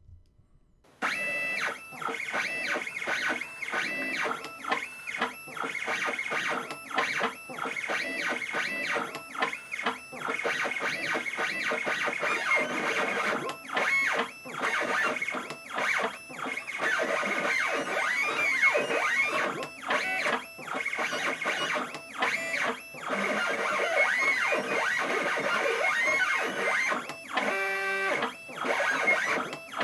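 Stepcraft CNC machine's stepper motors whining as the axes drive a drag knife across vinyl. It starts about a second in and runs with many brief stops and shifts in pitch as the machine moves from one cut segment to the next.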